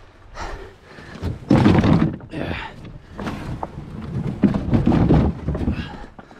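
Plastic sit-on-top kayak being dragged over beach rocks, its hull scraping and thunking on the stones in irregular pulls. The loudest scrapes come about a second and a half in and again around four and a half to five seconds in.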